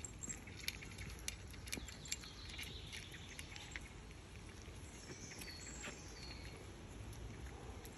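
Cavapoo puppies eating raw minced meat from a stainless steel feeding bowl: faint, irregular small wet smacks and clicks of chewing and licking.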